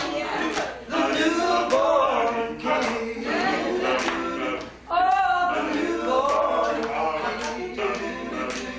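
Men's a cappella vocal group singing together, unaccompanied, with a short break between phrases just before the middle.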